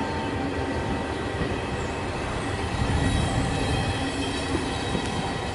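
Passenger coaches rolling past on the rails: a steady noise of wheels on track, with faint thin high tones from the wheels.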